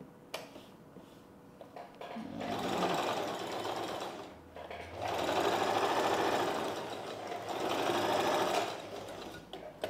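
Sewing machine stitching in three runs with short pauses between them, starting about two seconds in. It is sewing a rough line of stitches around the edge of a blouse cup piece.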